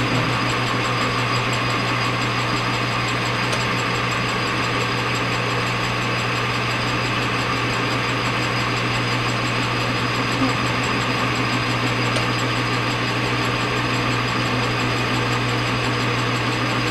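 Metal lathe running steadily with its chuck spinning, a constant low hum with a whine from the motor and gearing, as the tool is fed across the end of a part to face it off.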